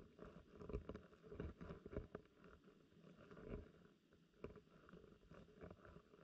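Faint, muffled underwater sound of a river current heard through a GoPro Hero9's waterproof housing resting on the gravel riverbed, a low rumble with irregular soft knocks and clicks scattered through it.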